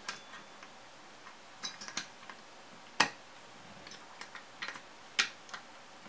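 Scattered sharp clicks and knocks from an AMD stock CPU heatsink and its retention clip being worked onto the hooks of the socket's mounting bracket. The loudest, sharpest click comes about three seconds in, with another a little after five seconds.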